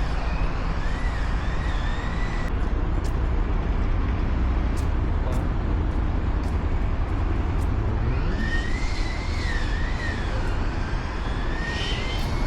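Steady low rumble of road traffic, with a faint wavering high tone near the start and again from about eight seconds in, and a few sharp clicks a few seconds in.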